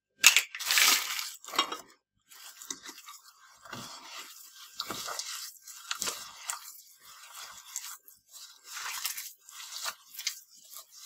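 A hand rubbing and squeezing butter, sugar and raw egg together in a glazed clay dish: gritty crunching of sugar grains and squishing in a run of irregular strokes, loudest about a second in.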